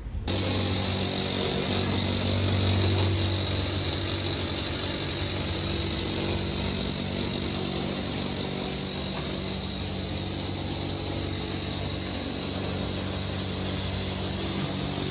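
An electric power tool's motor runs steadily under load with a high whine. It starts suddenly just after the beginning and keeps going without a break.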